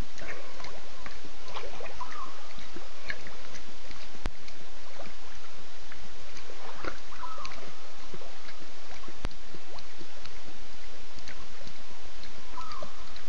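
Night ambience at a waterhole: a steady hiss with scattered short clicks and a few brief chirps.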